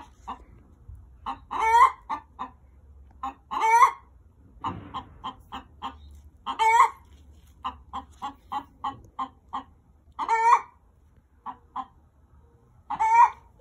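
Backyard hens squawking loudly and repeatedly. Runs of short clucks build into a long, loud call about every two to four seconds, five such calls in all.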